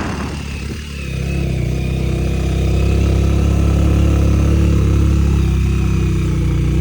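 Motorcycle engine running steadily while riding, getting louder from about a second in as it picks up speed.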